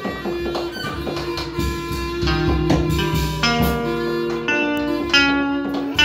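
Live band music led by an electric guitar picking a run of single notes that ring on, with violin and drums playing alongside.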